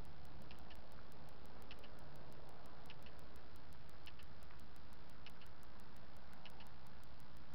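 Light paired clicks about once a second, from a body-worn action camera's housing and mount as its wearer walks. Underneath run a steady low hum and hiss and a fast, even electronic ticking.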